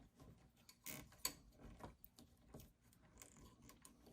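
Faint scattered clicks and rustles of a plastic zip tie being pulled tight around a bundle of wires, with one sharper click about a second in.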